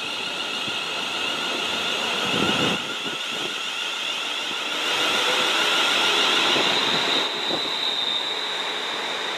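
TransPennine Express Siemens Desiro multiple unit running into the platform right past the listener: a steady high whine over the rumble of wheels on rail. It grows loudest about halfway through as the coaches roll by.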